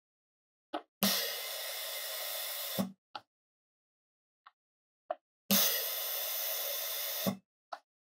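VIAVI CleanBlastPRO fiber-optic cleaner firing two hissing cleaning blasts through its handset tip into SC bulkhead connector ports. Each blast lasts about two seconds and begins and ends with a thud. Faint clicks come between the blasts as the tip is moved to and seated in the next port.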